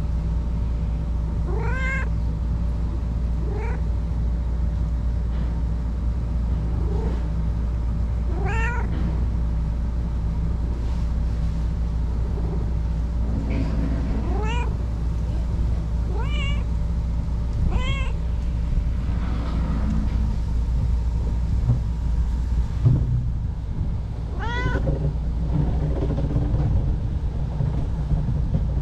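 A stray cat meowing repeatedly while being petted: about eight short calls, each rising in pitch, spaced a few seconds apart. A steady low hum runs underneath.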